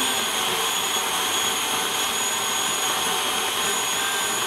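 Electric stand mixer running steadily at speed with a constant motor whine, beating an egg into creamed butter and sugar in its stainless steel bowl.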